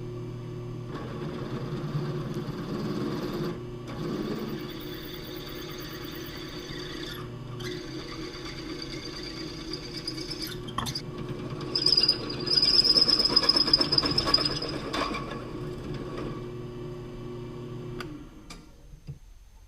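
Smithy 3-in-1 lathe-mill running and cutting metal. It grows louder with a high whine for a few seconds past the middle, then the machine shuts off and winds down near the end.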